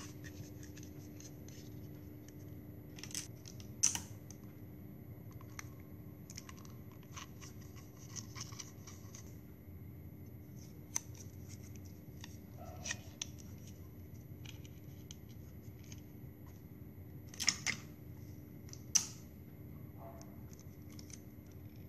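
Plastic drinking straws being slit and rolled by hand into flower stems: scattered short snips, crinkles and clicks over a faint steady hum, the sharpest about four seconds in and twice near the end.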